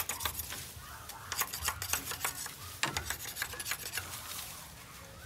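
A blade scraping and knocking along a green bamboo cane, trimming off the nubs left by side branches: a run of irregular sharp clicks and short scrapes.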